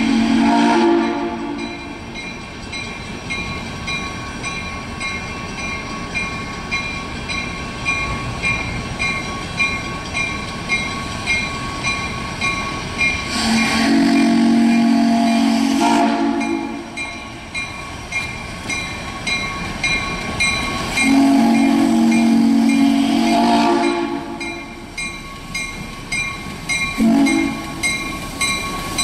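QJ-class 2-10-2 steam locomotive sounding its whistle for a grade crossing: two long blasts about halfway through and late on, then a short one near the end, with the tail of an earlier blast in the first second. Its bell rings steadily throughout, and the exhaust chuffs rhythmically between the blasts.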